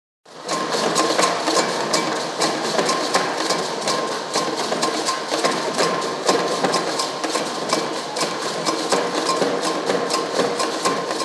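Ensemble of hand drums played together in a fast, busy rhythm of dense strokes, fading out near the end.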